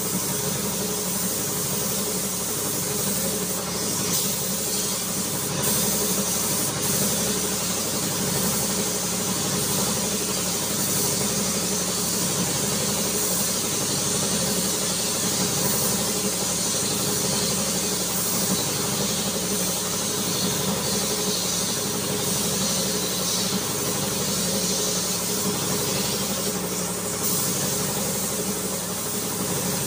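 Compressed air hissing steadily over a constant, even motor hum.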